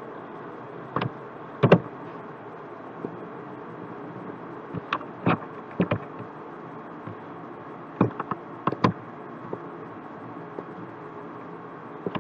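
Computer mouse clicking irregularly, about a dozen sharp clicks with some in quick pairs, over a steady background hiss.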